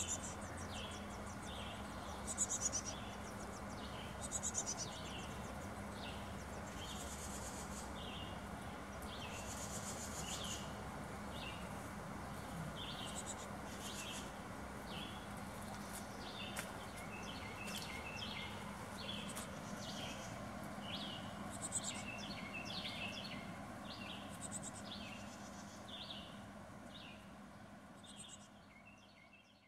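Outdoor bird chorus: a short chirp repeating about once a second, with bursts of high, fast trilling every few seconds, over a steady low hum. It fades out over the last few seconds.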